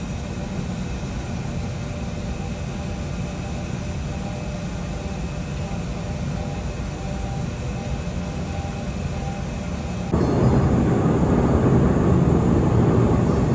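Steady low rumble of ambient noise aboard a ship, with a faint steady hum over it. About ten seconds in it jumps suddenly to a louder, rougher rumble.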